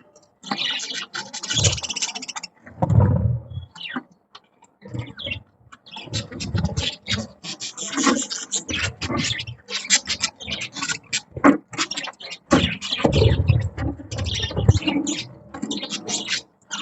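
Budgies chattering: a constant stream of quick, raspy chirps and warbles. Low rumbling scrapes come and go, around 3 seconds in and again between about 13 and 15 seconds.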